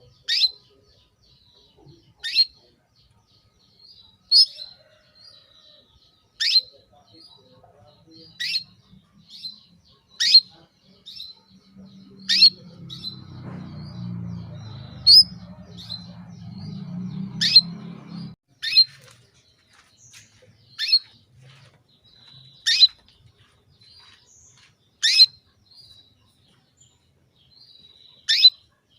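Female canary giving single short, sharp chirp calls, one about every two seconds: the call a hen canary in breeding condition uses to call a male. A faint low rumble sits under the calls for several seconds in the middle.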